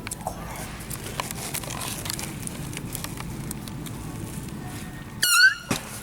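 Low store background noise with a few faint clicks, then a brief, loud, high-pitched squeal about five seconds in that rises in pitch at its end.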